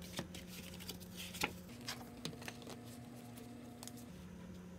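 Paper photocards and sticker sheets being handled and set down on a desk: a few soft taps and light rustles over a faint steady hum.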